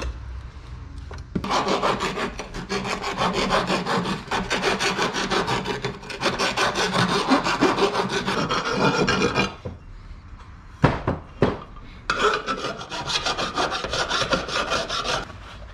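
Hand file rasping back and forth on the rim of an aluminum tube in rapid strokes. After a pause of about two seconds with two short clicks, the filing resumes, this time with a rounded file worked inside the tube's edge.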